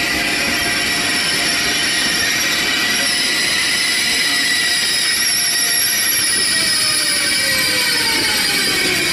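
ICE high-speed electric train rolling slowly into the station, with steady high-pitched whining and wheel squeal over the running noise. Near the end a whine falls in pitch as the train brakes almost to a stop.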